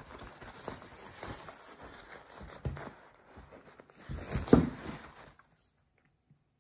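Paper towel rustling and crumpling as a cat paws at and tussles with a kitchen roll, with a few knocks of the roll against the tabletop, the loudest about four and a half seconds in. The rustling stops about five and a half seconds in.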